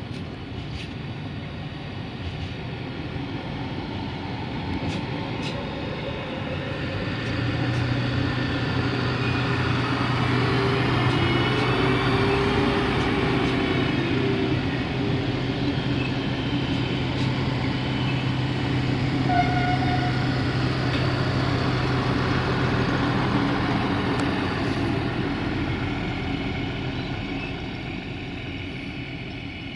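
Duewag BR628 diesel multiple unit passing: its diesel engines hum steadily over the rumble of wheels on the rails. It grows loudest about a third of the way in and fades near the end.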